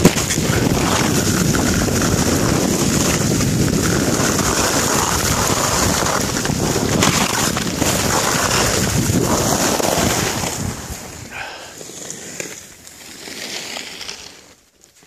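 Wind rushing over the microphone of a camera carried by a skier going downhill. It falls away sharply about ten seconds in as the skier slows to a stop.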